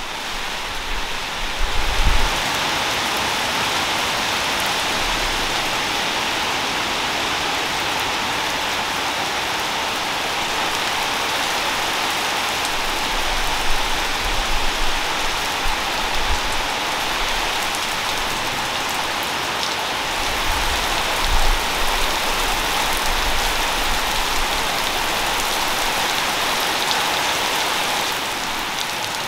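Heavy rain pouring steadily onto the ground and puddles, an even hiss of many drops. A few brief low rumbles come through, about two seconds in and again around fourteen and twenty-one seconds.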